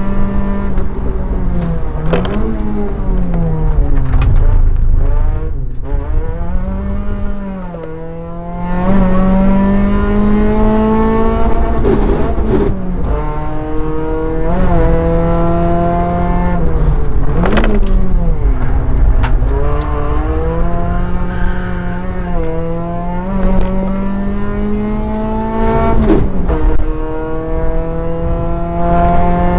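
Competition car's engine heard from inside the cabin, accelerating hard: the pitch climbs steadily and drops sharply at each of several gear changes. About a quarter of the way in it eases off and runs lower and quieter for a moment before pulling hard again.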